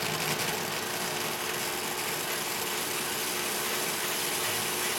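HHO (oxyhydrogen) gas welding machine running with its micro torch lit: a steady hiss with a faint steady hum.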